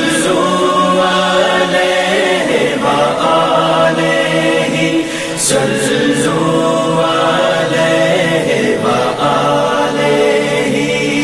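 Background devotional singing: a group of voices singing an unaccompanied nasheed of blessings on the Prophet Muhammad, in long held notes.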